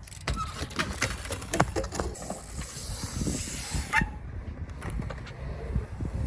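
BMX bike being ridden on concrete: tyre roll with a rushing hiss and a run of sharp knocks and clatters from the bike. A goose honks once about four seconds in.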